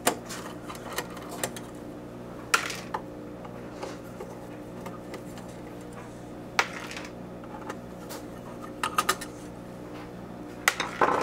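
Screwdriver taking screws out of a sheet-metal cover plate on a vintage HP 4260A LCR meter: scattered sharp metal clicks and clinks, the loudest about two and a half and six and a half seconds in and a quick cluster near the end, over a steady low hum.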